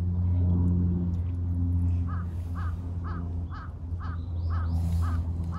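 A crow cawing: a run of about eight short caws, roughly two a second, beginning about two seconds in, over a steady low hum.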